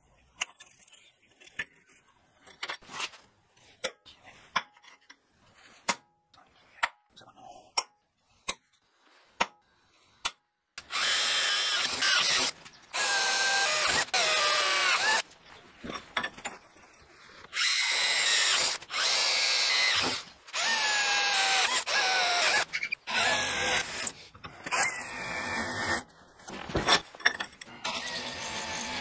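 A run of light clicks and knocks, then about eleven seconds in a power drill starts running in repeated bursts of a few seconds each, its pitch sagging and rising as it drills into steel.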